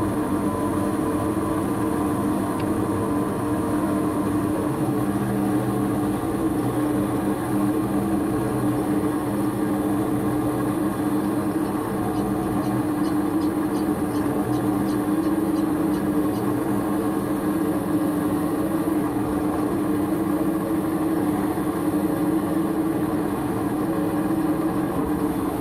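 Mini lathe running steadily as a spinning M16 tap hobs worm-gear teeth into an aluminium (dural) gear blank: a constant motor hum with the noise of the cut.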